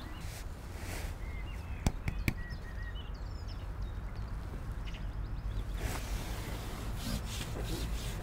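Outdoor lakeside ambience: a steady low rumble with small birds chirping now and then, and two sharp clicks close together about two seconds in.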